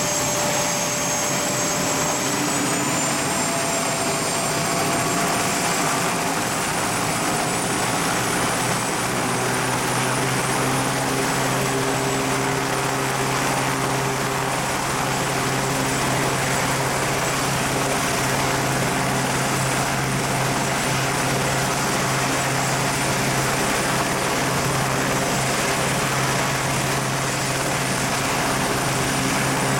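Airbus H125 helicopter running on the ground, its Arriel turboshaft and three-blade main rotor turning. The turbine's high whine steps up in pitch over the first ten seconds or so, and a steady low rotor beat comes in about nine seconds in; after that the whine and beat hold steady.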